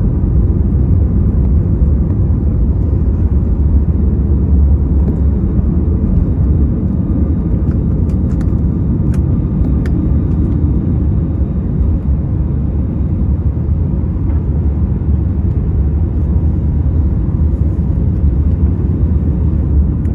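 Airbus A321neo's engines at takeoff power, heard inside the passenger cabin as a steady low rumble with a few faint clicks near the middle.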